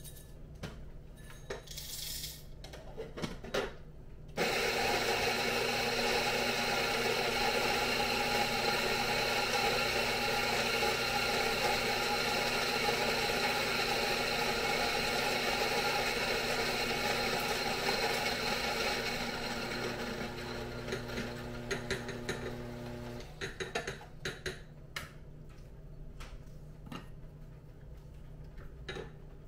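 Electric coffee grinder grinding a 20 g dose of whole coffee beans for about 19 seconds: a steady motor hum under the crunching of beans, growing lighter as the last beans pass through, then the motor cuts off. A few light taps and clicks follow.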